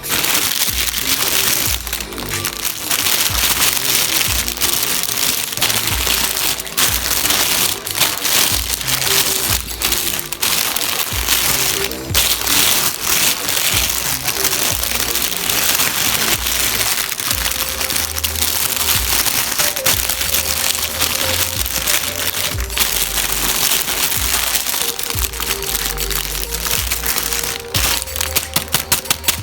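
Background music with a steady bass line, over crinkling and clicking of toy packaging being handled. Near the end comes a fast, even run of sharp clicks.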